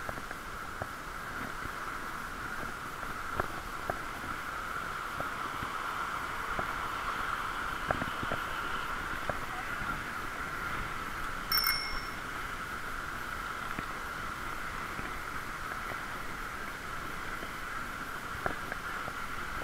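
A bicycle bell rings once, briefly, a little past halfway. Underneath it runs the steady muffled noise of riding, heard through a waterproof camera case, with scattered light clicks.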